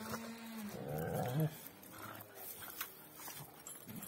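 Kangal dogs play-fighting: a drawn-out whining growl that stops about half a second in, then a short rough growl around a second in, followed by faint scuffling.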